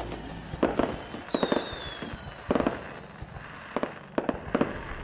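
Fireworks display: about ten sharp bangs of aerial shells going off at uneven intervals, with high whistles falling in pitch during the first few seconds.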